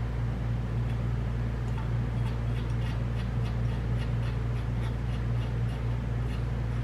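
Faint, irregular metallic clicks and ticks of nuts being threaded by hand onto the studs of a BMW M54 cylinder head, over a steady low hum.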